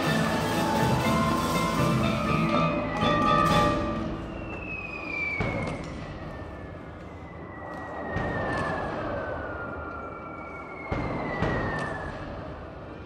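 Indoor percussion ensemble playing: sustained mallet and keyboard chords for about four seconds, then three long falling whistles, like falling shells, broken by deep booming hits.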